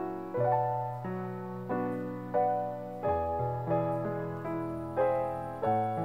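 Background piano music: chords and melody notes struck every half second or so and left to fade.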